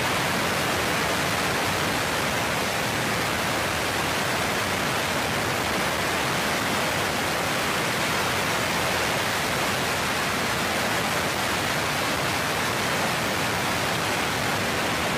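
Subscale solid rocket motor firing on a horizontal test stand: a loud, steady, rushing exhaust noise with no change in level during the burn.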